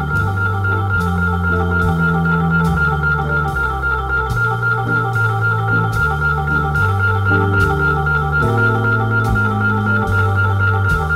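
Organ music: a long held organ chord over a bass line that steps from note to note, with a light steady beat.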